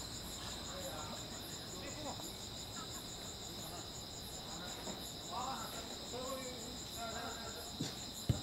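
Crickets chirring steadily in a high, rapid pulse, with faint distant voices of players calling partway through. Near the end, one sharp thud of a football being kicked.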